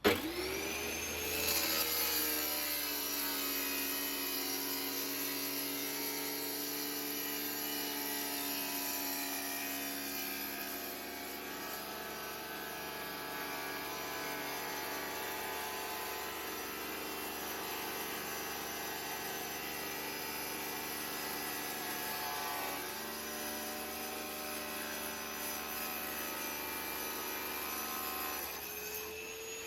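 Electric tile-cutting power tool switched on, its motor spinning up with a rising whine over about a second, then running steadily; the pitch shifts slightly near the end.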